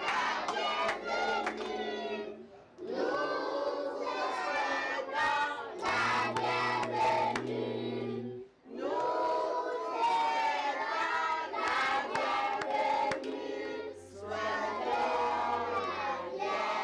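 A group of young children singing a song together, with hand claps. The singing comes in phrases, breaking off briefly about three seconds and eight and a half seconds in.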